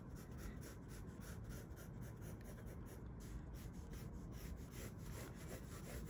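Faint pencil scratching on sketchbook paper in a run of short, irregular strokes as an outline is drawn.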